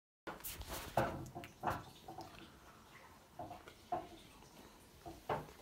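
About six light knocks and clicks at irregular intervals over a quiet background, starting after a brief silence.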